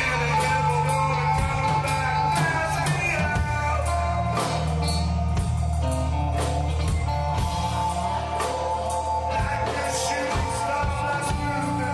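Live rock band jamming in G minor: drum kit, bass, keyboards and guitars, with long held lap steel notes and singing over them.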